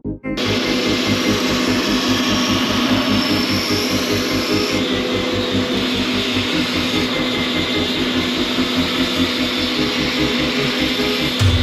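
Belt sander running steadily while a metal piece is ground against the abrasive belt, starting about a third of a second in.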